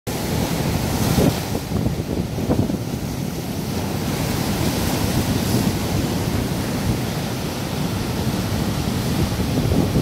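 Ocean surf breaking over a rocky shore, white water rushing and churning across the rocks, with brief louder splashes about one and two and a half seconds in.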